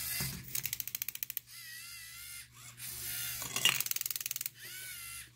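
LEGO Mindstorms EV3 motors driving a robot arm: several runs of a wavering motor whine, with rapid mechanical clicking from the gear train about a second in and again just past the middle. The arm is carrying a green M&M over to its bowl and dropping it.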